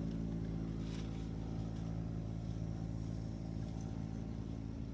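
A steady low hum of several evenly spaced tones, like a running motor or engine, holding level without change.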